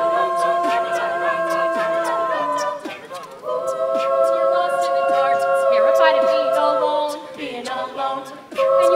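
A cappella choir singing long, held chords. A short break comes about three seconds in before the next chord is held, and a new chord starts near the end.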